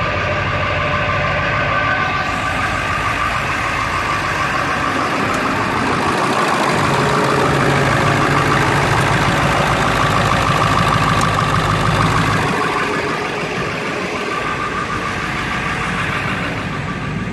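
2001 Ford F250's 7.3 L Power Stroke turbo-diesel V8 idling shortly after a cold start, a steady run that grows louder for several seconds in the middle.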